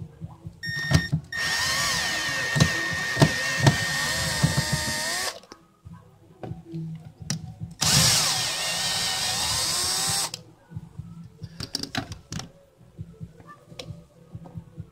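Milwaukee cordless drill/driver backing out a boat speaker's mounting screws: a short blip, then two runs of a few seconds each with the motor's whine wavering in pitch, followed by small clicks of handling.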